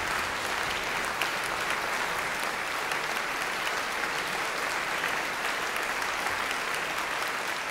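Large audience applauding steadily: dense, even clapping.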